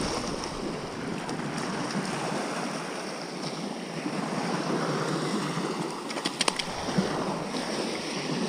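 Small surf washing on a beach, with wind on the microphone. A short cluster of clicks about six seconds in.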